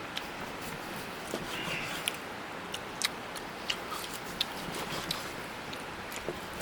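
Grilled meat being cut and handled on the grill: light, sharp clicks every half second to a second over a steady hiss.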